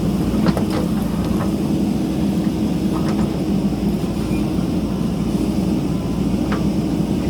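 JCB backhoe loader's diesel engine running steadily while working, with a few short sharp knocks scattered through.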